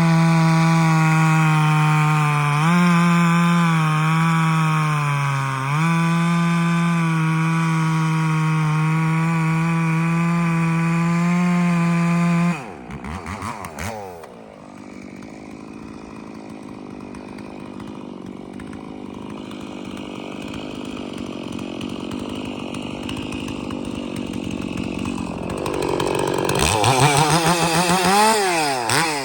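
Stihl 046 two-stroke chainsaw with a dual-port muffler and a 28-inch full-skip chain, running flat out through white oak, sagging slightly in pitch twice under load. About twelve seconds in the throttle is released and the revs fall to a lower idle. Near the end it is revved up again a couple of times.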